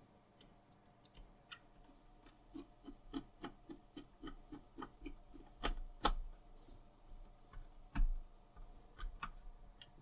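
A screwdriver driving a screw into the plastic handle housing of a VAX 2000 vacuum cleaner: a run of faint, irregular ticks and clicks, with a few louder clicks about six and eight seconds in.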